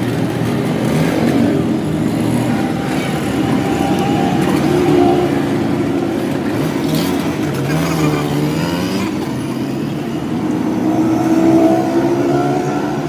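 Honda CD 70's small single-cylinder four-stroke engine running, its revs rising and falling a little, with one clear rev up and back down about eight seconds in.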